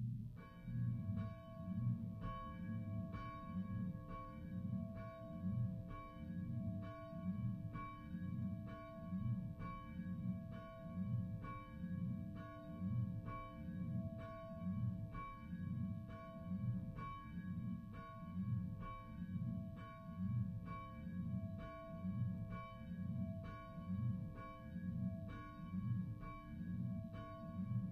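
Church bell ringing, struck over and over in a steady, even rhythm, each stroke ringing on into the next.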